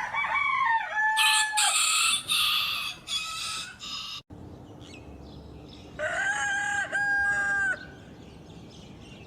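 Rooster crowing twice: a cock-a-doodle-doo right at the start and another about six seconds in. Harsh, noisy squawking calls fill the stretch between them.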